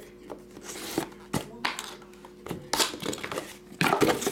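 Plastic wrap crinkling and cardboard trading-card boxes being handled: a handful of short rustles and knocks, the busiest stretch near the end.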